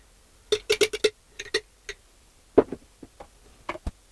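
Spoon clinking and tapping against a pot and jar as goose fat is scooped into the pot to be weighed: a quick run of clinks about half a second in, then a few single knocks.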